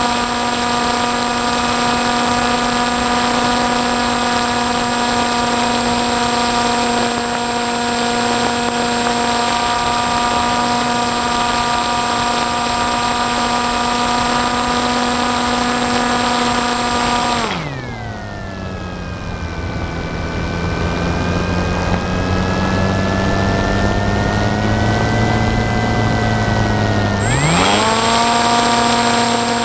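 FPV aircraft's motor and propeller whining at a steady high throttle. About 17 seconds in the throttle is cut and the pitch drops sharply to a low hum, then about 10 seconds later it glides back up to the same steady whine.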